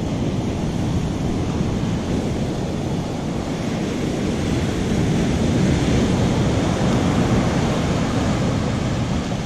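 Ocean surf breaking and washing up the beach, with wind rumbling on the microphone; the wash swells a little about halfway through.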